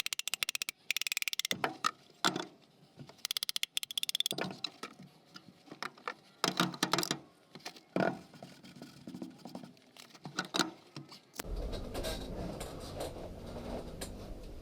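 Metal clinks and clanks from hand work on scrap compressor parts, with short bursts of rapid clicking. About eleven seconds in, a steady low hum comes in.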